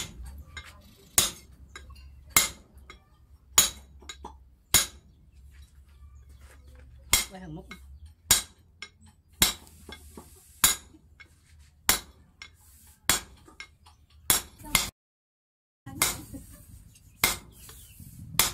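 Striker's sledgehammer blows on a handled forging tool set on red-hot steel at the anvil. Each blow is a sharp metallic clank, coming at a steady pace of about one every 1.2 seconds, with a short pause in the blows about a third of the way in.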